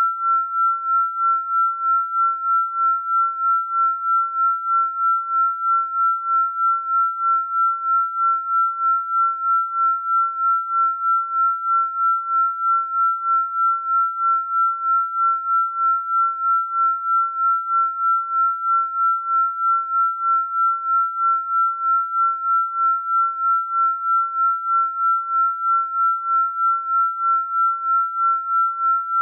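A synthesized pure sine tone held at one steady pitch, pulsing evenly in loudness about two and a half times a second: a binaural-beat style frequency-healing tone.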